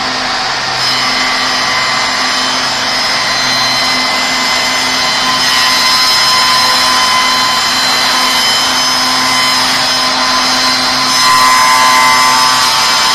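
Two-spindle CNC shaper running, its spindle cutters routing the curved edges of wooden chair parts. The machine gives a steady whine over the cutting noise and gets louder about a second in and again near the end.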